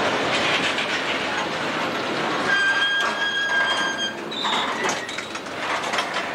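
Freight cars rolling past close by: a steady rumble of steel wheels on rail with rapid clicking over the joints. About two and a half seconds in, a wheel gives a high, steady squeal for about a second and a half, and a brief second squeal follows.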